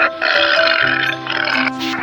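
Background music of steady held notes, with an animal call mixed in.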